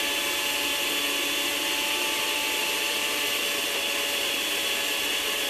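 Electric jug blender with a stainless-steel base running at full, steady speed, its motor giving an even whine as it purees nettle leaves and stems with water.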